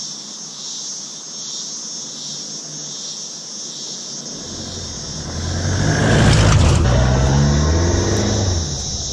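A four-wheel-drive ute driving along a sandy dirt track towards the camera and past it, engine revving, loudest about six to seven seconds in with tyre and gravel noise, then fading. Before it arrives, a steady, pulsing high insect drone fills the bush.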